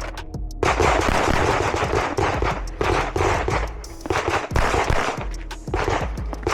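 Rapid strings of pistol shots from a Glock handgun, fired in quick succession with short breaks between strings.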